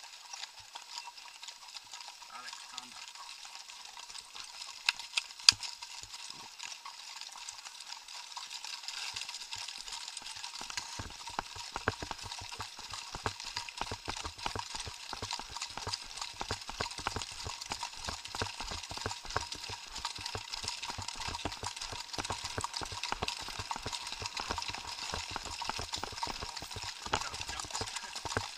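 Horses' hooves on a gravel forest track under a steady hiss. A few sharp knocks come about five seconds in, and from about ten seconds in a quick, continuous run of hoofbeats sets in and grows louder as the horses pick up pace.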